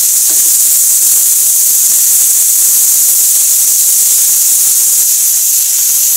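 Sliced pork and mushrooms sizzling in a hot frying pan: a loud, steady high hiss.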